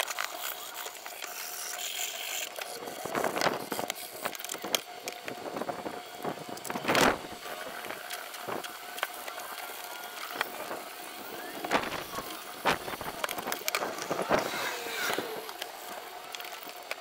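Wet sandpaper rubbed by hand over an aluminium frying pan, a continuous scratchy scraping broken by frequent short knocks.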